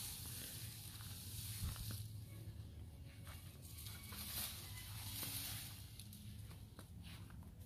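Leafy cut branches rustling in soft, intermittent swishes as they are carried and tossed onto a brush pile, with a few faint knocks of wood.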